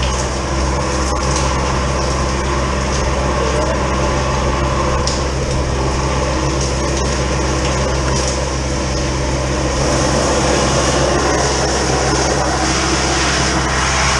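Drain jetter running steadily: its engine drives the high-pressure water jet through the hose, and the jet hisses and splashes in the pipe as the drain is cleared.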